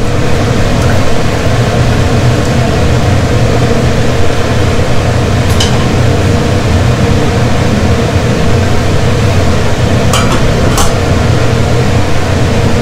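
Steady loud hum and whir of a kitchen machine running, with a light clink about halfway and two metal clinks near the end as an aluminium lid is set on the saucepan.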